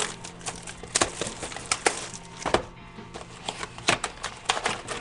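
Cardboard and wrapper packaging of a trading-card box being torn and pulled open by hand: a run of irregular sharp cracks and crinkles, several a second. Faint background music underneath.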